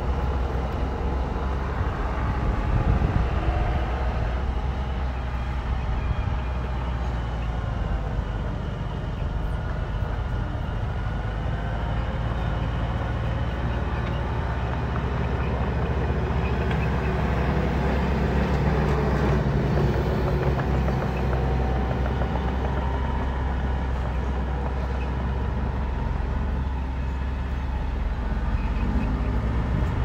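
Diesel engines of earthmoving machinery, a mini bulldozer and dump trucks, running in a steady low drone.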